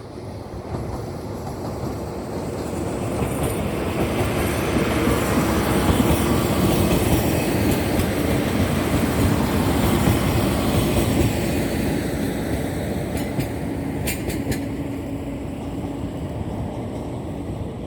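A train of two JNR Class DE10 diesel-hydraulic locomotives with the Maya 34 track inspection car passing: engine and wheel-on-rail noise swells to a peak about midway, then eases off. A few sharp clicks from the wheels come near the end.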